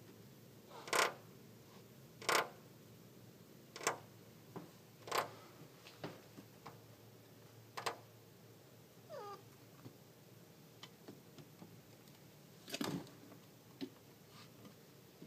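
Siamese cat making short, sharp chirping calls, about six spaced a second or more apart, with one fainter falling call about nine seconds in.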